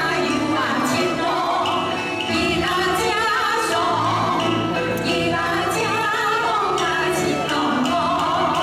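Women singing a folk boatman's song with vibrato to live instrumental accompaniment, with a sharp percussion accent every two seconds or so.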